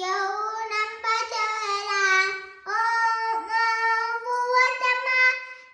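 A young girl chanting a devotional sloka in a sing-song melody, holding long steady notes with short pauses for breath between phrases.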